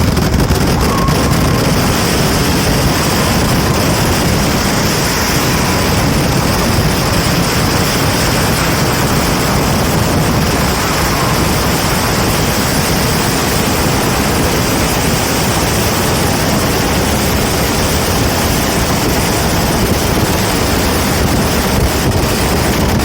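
Fireworks giving a continuous, dense hissing roar with no distinct bangs.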